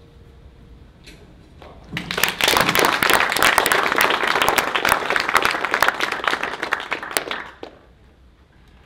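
Audience applauding, a dense patter of many hands clapping that starts about two seconds in and dies away near the end.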